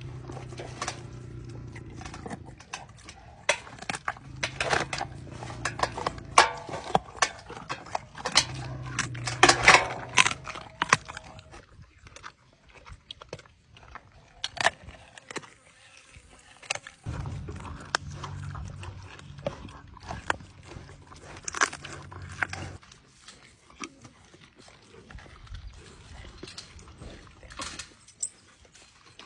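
An animal biting and crunching its food, with many sharp cracks and chews, and low rumbling sounds from the animal in stretches of a couple of seconds.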